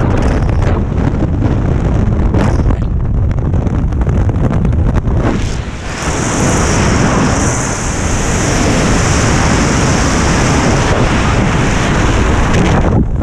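Freefall wind rushing over a skydiver's body-worn camera microphone: a loud, continuous buffeting roar that dips briefly about six seconds in.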